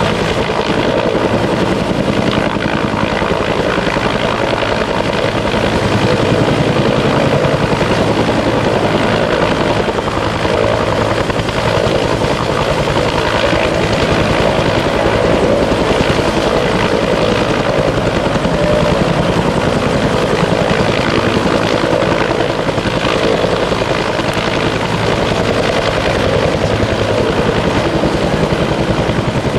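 Bell 205 (Huey) firefighting helicopter with a single turboshaft engine, hovering low over water while it draws up a load through its snorkel hose. The two-blade main rotor keeps up a loud, steady, fast beat.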